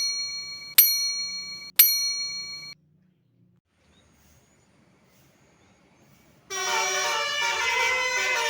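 Three bell-like dings about a second apart, each ringing out, followed by a few seconds of near silence. About six and a half seconds in, a Basuri telolet musical horn on a tour bus starts playing a multi-note tune, several tones sounding together and stepping in pitch.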